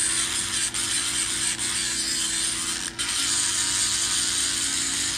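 Dremel rotary tool running at high speed with a stone bit, grinding and polishing the inside of an aluminum cylinder head port. It makes a steady whine with a grinding hiss and dips briefly three times.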